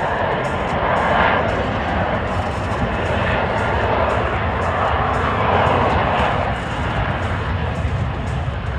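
Jet noise from a USMC F-35B's Pratt & Whitney F135 engine: a loud, steady rush that swells and eases slightly.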